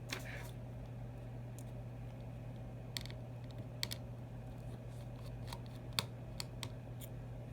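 Scattered small clicks and taps of a precision screwdriver working the tiny speaker screws inside an iPhone 6, with a brief scrape right at the start. A steady low hum runs underneath.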